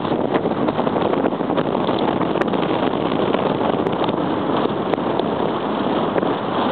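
Strong wind blowing across the camera's microphone: a loud, steady, fluttering rush of noise.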